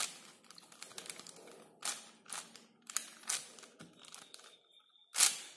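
Plastic 4x4 puzzle cube being turned by hand: irregular clicks and clacks as its layers are twisted, with soft rubbing of fingers on the plastic and a louder clack near the end. The layers are being turned to build the first cross.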